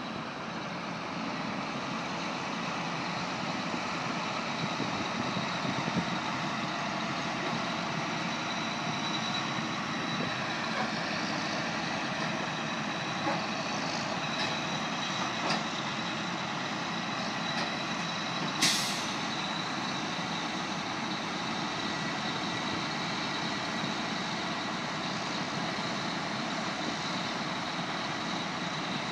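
Diesel engines of a Kenworth T800 semi truck and a farm tractor running steadily as the tractor's high-dump wagon is worked alongside the truck, with one short sharp hiss of air about two-thirds of the way through.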